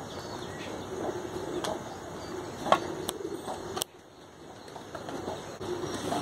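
A dove cooing, with a short-handled hoe chopping into soil a few times, one strike louder than the rest.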